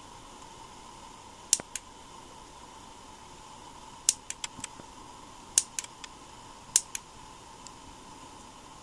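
Small plastic push-button on a Daiso LED selfie ring light being pressed repeatedly, giving sharp clicks in small groups of two or three as the light is stepped through its brightness modes. The clicks sound over a faint steady hum.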